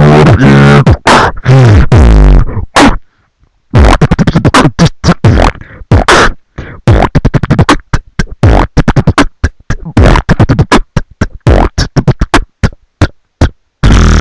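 Human beatboxing: fast, loud vocal drum hits with a wobbling, humming vocal bass in the first couple of seconds, a brief pause about three seconds in, then a rapid run of kick, snare and hi-hat sounds made with the mouth.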